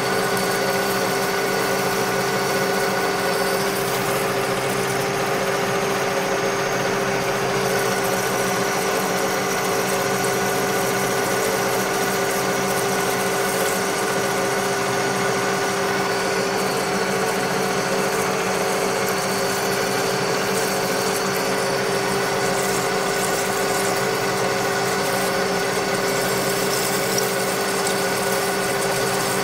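Metal lathe running steadily: a constant machine hum with a strong steady tone and a hiss of noise above it, unchanging throughout.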